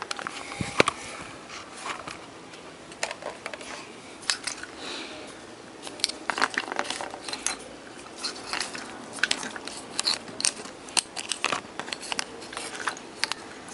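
Irregular light clicks and taps of a small potentiometer, a pointed hand tool and a circuit board being handled on a workbench.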